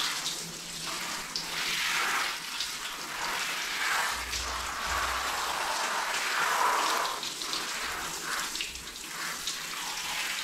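Handheld shower head spraying water onto a dog's wet coat and the tiled floor: a steady hissing patter of water that swells and fades.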